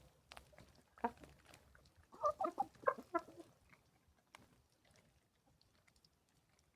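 Domestic hens clucking in short bursts, loudest about a second in and again around two to three seconds, then trailing off into faint scattered taps of the hens pecking at grain.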